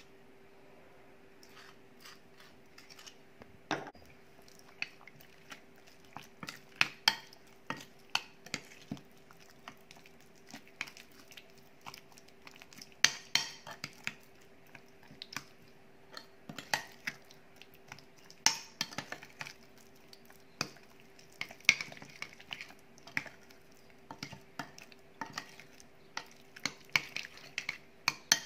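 Metal spoon clinking and scraping against a ceramic baking dish while chicken pieces are mixed into a thick yogurt marinade: irregular sharp clicks, more frequent in the second half. A faint steady hum runs underneath.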